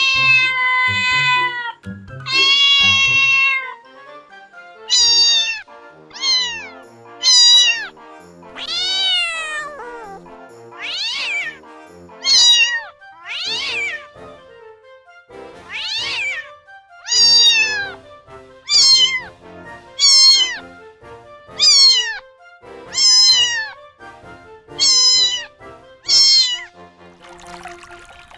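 Domestic cat meowing over and over, about seventeen separate meows, most dropping in pitch at the end, over background music.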